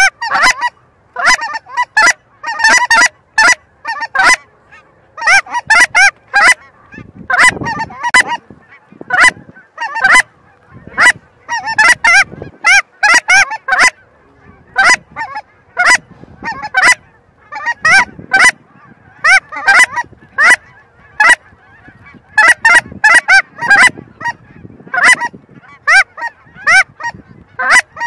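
Loud goose honks and clucks in a quick, uneven run of short calls, several a second, with brief pauses between runs.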